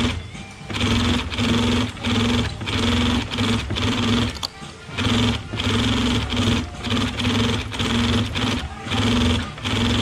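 Consew industrial sewing machine stitching webbing in short runs, stopping and starting about once a second over a steady motor hum.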